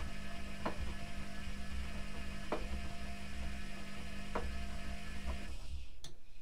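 Privileg Classic 30612 front-loading washing machine in its main wash: the drum motor hums steadily while the wet, soapy laundry tumbles with a few short knocks. About five and a half seconds in, the motor and drum stop, and a single sharp click follows.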